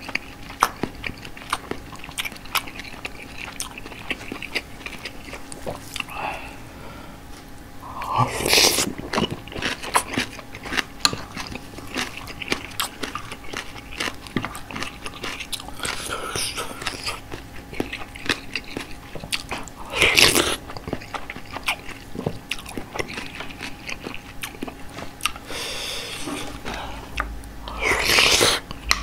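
Close-miked eating: wet crunching and chewing of napa cabbage kimchi and soup-soaked rice, with a steady run of small mouth clicks. A few times, spoonfuls of beef head meat soup are slurped off the spoon, and these are the loudest sounds.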